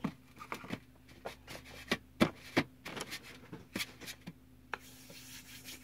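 Hands mixing and squishing a wet flour, salt and water dough on a tray: irregular soft taps and rubbing, with a sharper knock about two seconds in. A faint steady hum runs underneath.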